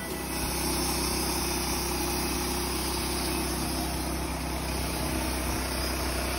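Gas engine of a portable band sawmill running steadily as the band blade is pushed through a log.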